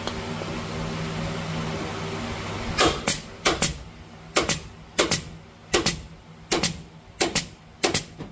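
BeA upholstery staple gun shooting staples through vinyl headliner into a wooden bow: eight sharp double snaps, about one every 0.7 s, starting about three seconds in. Before the first shot there is a steady low hum.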